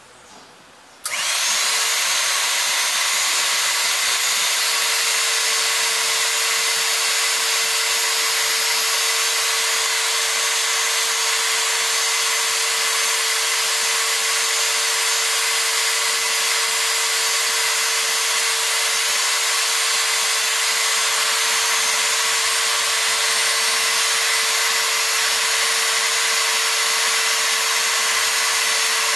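Hydraulic pump running steadily, feeding oil through the hose to a hydraulic cylinder whose ram is extending under test. It starts abruptly about a second in, then holds a constant level as a dense hiss with one steady mid-pitched hum.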